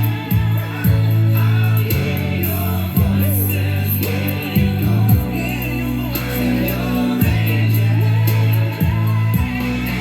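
Song with singing over a strong, sustained bass line, played back through an Aiwa CX-ZKR900HR hi-fi system's speakers.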